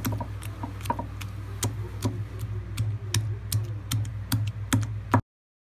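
Wooden pestle pounding a wet grilled brinjal and tomato chutney in a granite stone mortar: irregular knocks, about two to three a second, over a steady low hum. The sound cuts off abruptly near the end.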